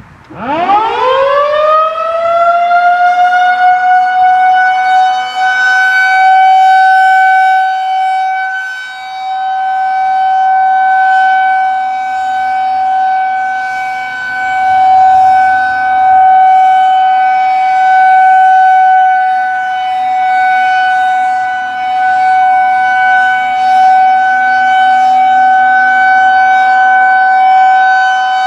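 Federal Signal 2001-130 outdoor warning siren starting up. It winds up fast from a low pitch to a steady high tone in about two seconds, then holds the steady Alert tone. Its loudness swells and fades every five or six seconds as the horn rotates.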